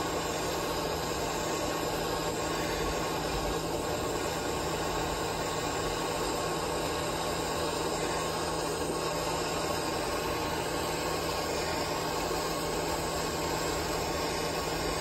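Handheld propane torch burning with a steady hiss as it heats a copper-to-stainless joint for soft soldering.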